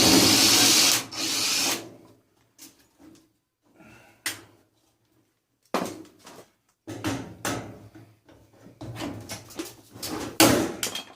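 A power drill runs for about two seconds, driving out screws, as the front panel of a tumble dryer is taken off. After a near-quiet pause with a few clicks, the dryer's metal panel and parts knock and rattle as they are handled, loudest near the end.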